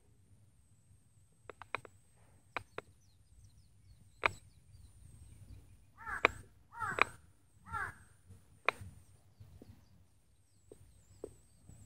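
A crow cawing three times in quick succession, each caw falling in pitch, about six to eight seconds in. A few sharp clicks come before, the loudest about four seconds in.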